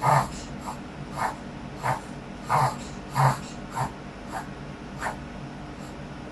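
Smooth-coat Chihuahua reverse sneezing: a run of about nine sharp, noisy inhalations pulled hard through the nose, a little under a second apart, dying away about five seconds in.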